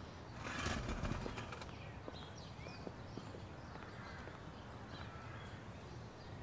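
Small birds chirping faintly now and then, with a brief scuffing noise lasting about a second near the start.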